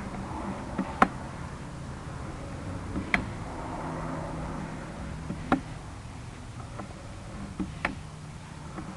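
Sharp clicks every two seconds or so over a steady low hum as a sewer inspection camera's push cable is fed down a drain line.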